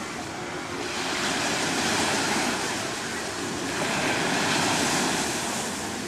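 Black Sea surf washing onto a sandy beach: a steady wash of breaking waves that swells twice and eases back.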